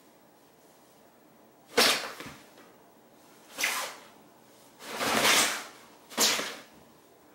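Fabric pop-up cat tunnel rustling in four sharp bursts, the third one longer, as a cat thrashes and kicks inside it.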